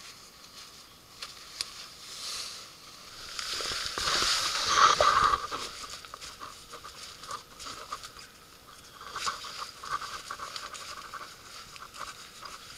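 Snugpak Scorpion 2 inner tent fabric rustling and scraping as it is pulled and clipped to the poles with toggle clips, with small clicks throughout. The loudest handling comes about four to five seconds in.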